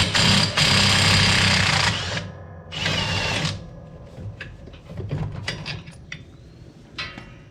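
Milwaukee M18 mid-torque cordless impact wrench hammering a bolt out on the medium setting: one run of about two seconds, then a second shorter run about three seconds in. After that come scattered light metallic clicks.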